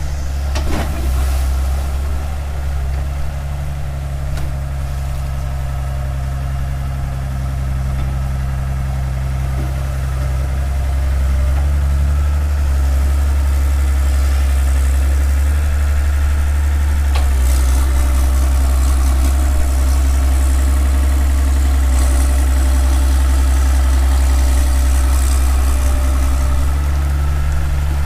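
Hitachi excavator's diesel engine running steadily while the boom and bucket work, getting louder about halfway through and staying up, with a couple of brief knocks.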